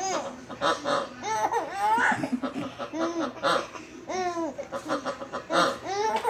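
A baby laughing hard in repeated short bouts.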